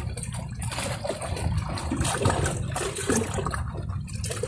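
Sea water washing and trickling among coral rocks at the shoreline at high tide, an irregular sloshing with no break.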